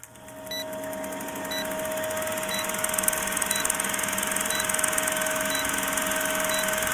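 Film-projector countdown-leader sound effect: a steady mechanical whirr and rapid clatter, with a short high beep once a second.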